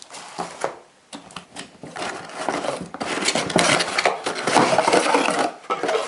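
Paper and plastic packaging being handled and rustled while items are taken out of a box, with small knocks and clicks. The rustling is heaviest in the middle and eases off near the end.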